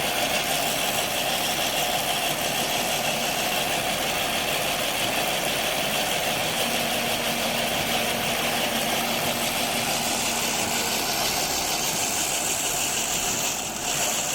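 Lavender harvesting machine running steadily, an even mechanical engine noise with no change in speed.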